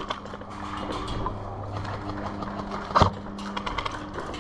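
A steady low hum with many faint scattered clicks, broken by one sharp crack about three seconds in.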